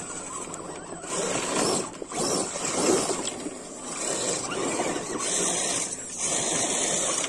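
Scale RC rock crawler trucks climbing loose rocky ground: small electric motors and drivetrains running in several surges, with tyres crunching over rock and gravel.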